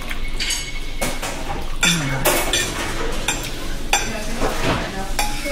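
Dishes and cutlery clattering in a restaurant: a scattered string of short clinks and knocks over a steady room hum.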